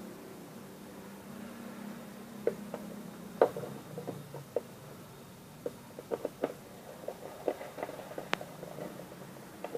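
Screwdriver clicking and tapping irregularly against the screw terminals of a plastic relay socket as the screws are turned, over a faint low hum.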